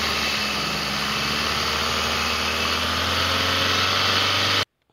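A small engine running steadily with a low hum, cutting off abruptly near the end.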